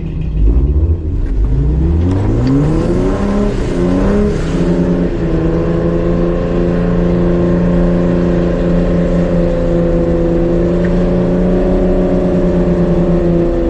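Jeep engine revving up over the first few seconds, then held at steady high revs under load while towing a stuck van up a steep, muddy hill on a kinetic rope.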